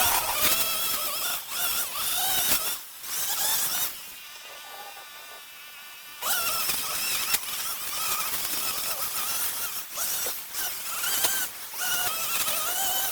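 String trimmer (whipper snipper) running as it cuts grass edges, its high buzzing whine wavering up and down in pitch. About four seconds in it eases to a quieter, steady tone for a couple of seconds, then picks up again.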